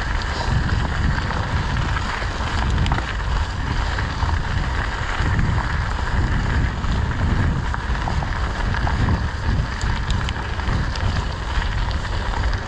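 Steady low wind rumble on the microphone with the rolling noise of mountain bike tyres on a slippery dirt singletrack climb.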